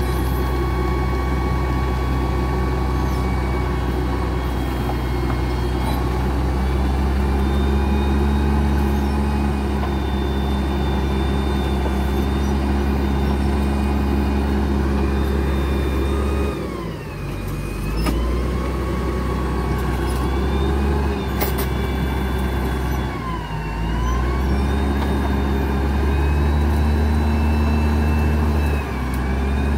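XCMG GR1803BR motor grader's diesel engine running hard with a high whine riding on it, as the stuck grader strains to drive out of the mud. The engine note and the whine drop briefly and recover three times: about halfway through, a few seconds later, and just before the end.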